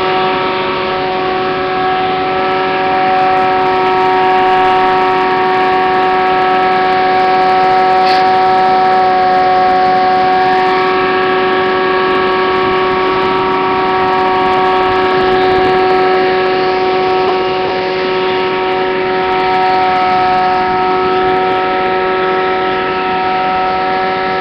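Vacuum extraction truck running its blower, a loud, steady drone of several constant tones, as it draws through hoses laid across the street to holes in the grates.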